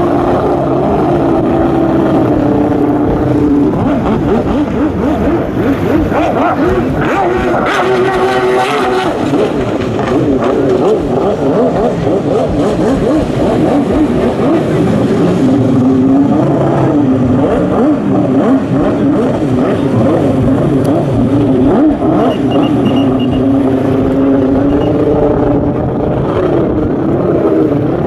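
Jet ski engine running hard through a slalom course, its pitch rising and falling over and over as the throttle is opened and backed off through the turns.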